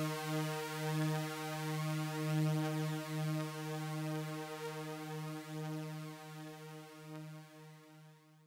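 Synthesized drone of layered sawtooth waves on a low pitch of about 155 Hz, holding one buzzy chord with a slow pulsing, and fading out toward the end.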